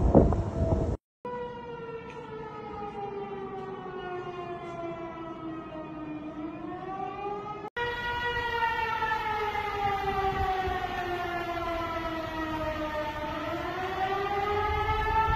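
Outdoor warning siren wailing. Its pitch sinks slowly over about five seconds, then swings back up, twice over. In the first second there is loud wind rumble on the microphone before an abrupt cut.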